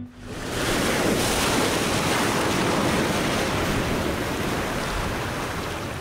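Ocean waves crashing on rocks. The surf swells up in the first second, holds steady, then slowly ebbs toward the end.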